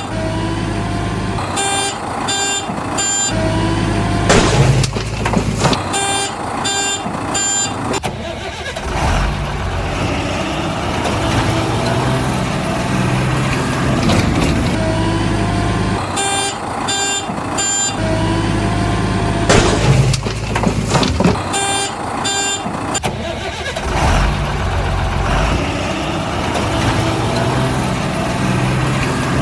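Heavy-truck sound track: a diesel engine running steadily, with a reversing alarm beeping in groups of about four, two beeps a second, and a few short hissing sweeps. The pattern repeats about every 16 seconds, like a looped sound effect.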